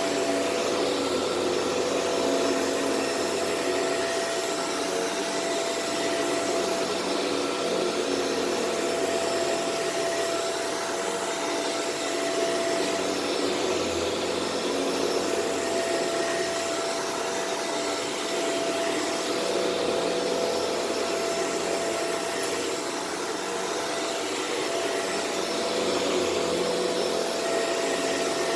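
Shark Rotator Powered Lift-Away upright vacuum running on carpet, a steady motor whine over the rush of suction airflow, swelling slightly now and then as it is worked over the floor.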